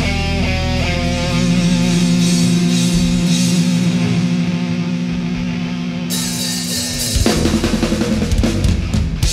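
Heavy metal band music: held chords with a melody moving over them, then a rapid run of drum hits with cymbals from about seven seconds in.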